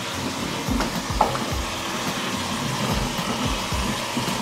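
Kitchen tap running onto cut potatoes in a roasting tray while a hand stirs and turns them in the water, with steady splashing and irregular dull knocks as the pieces shift.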